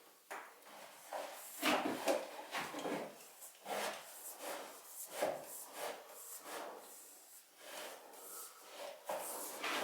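Irregular faint rubbing and knocking, roughly one or two short scrapes a second, like wood or hard material being handled.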